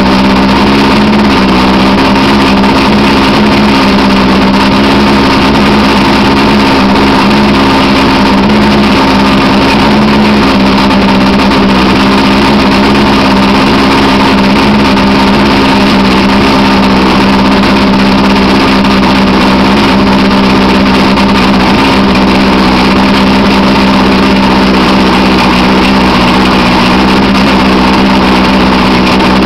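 Outboard motor with its cowling off, running steadily out of the water on a garden-hose flushing attachment.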